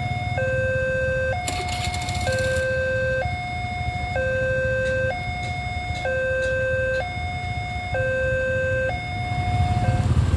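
Railway level-crossing warning alarm sounding: an electronic two-tone signal that switches between a higher and a lower tone about once a second, warning that a train is approaching. Under it is the low running of motorcycle engines at the crossing.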